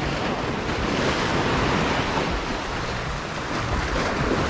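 Ocean surf washing in on the shore: a steady rushing noise that swells slightly about a second in and again near the end.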